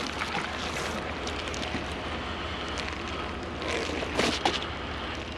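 Steady rushing outdoor background noise, with a few faint rustles about four seconds in.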